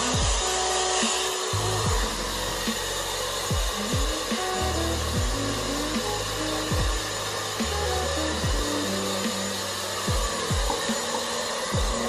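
Steady rushing airflow of a dog blow dryer running continuously. Background music with deep bass notes that slide downward plays underneath.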